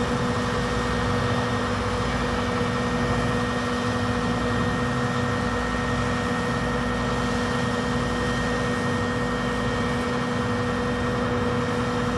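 Boom truck's engine running at a steady speed: a constant low rumble with a steady hum and a higher whine over it.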